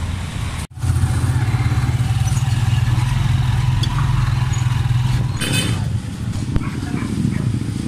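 Motorcycle engine of a sidecar tricycle running steadily close by, with a short high-pitched sound about five and a half seconds in, after which the engine sound drops and turns rougher.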